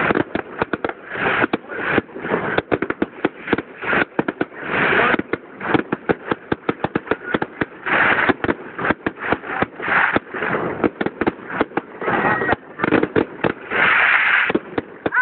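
Fireworks display: a dense, continuous barrage of sharp bangs and crackling shells, with louder bursts of crackle every couple of seconds.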